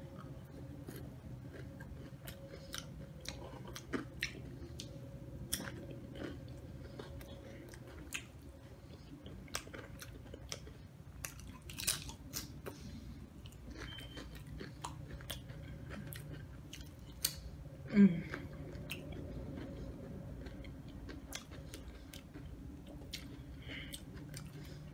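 Close-up chewing and crunching of Doritos nachos, the tortilla chips giving many irregular crisp crunches, over a steady low hum. One brief louder sound comes about eighteen seconds in.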